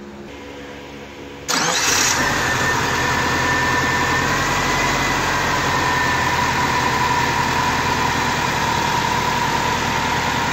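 Freshly rebuilt Subaru EJ25 2.5-litre turbocharged flat-four engine starting about a second and a half in, then settling into a steady idle. This is the initial start for its break-in procedure on a break-in tune.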